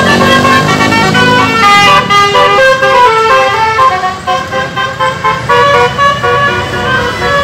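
Basuri telolet horn, a multi-tone musical vehicle horn, playing a quick melody. Several notes sound together and change pitch every fraction of a second without a break.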